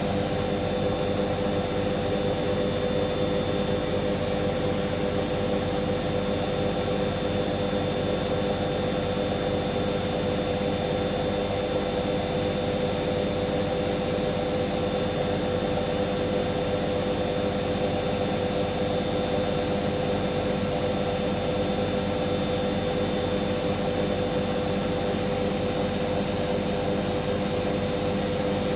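Hoover washing machine in its final spin, the drum turning at speed with a steady, even motor whine and rushing noise.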